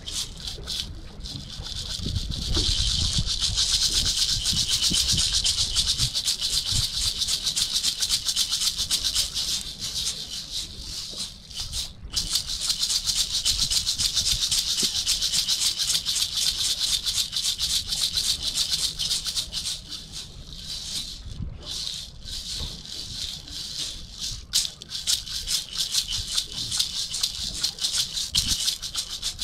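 A pair of hand-held maracas shaken fast and continuously. The rattling starts about two seconds in, breaks off briefly near the middle and goes softer for a stretch later on.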